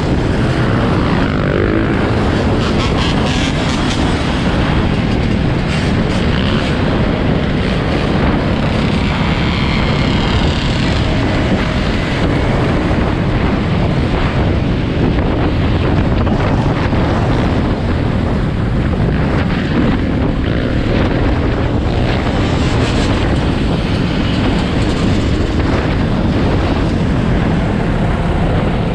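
Dirt bike engine running at road speed, heard through heavy wind noise on the microphone, with the engines of nearby quads and dirt bikes revving up and down around it.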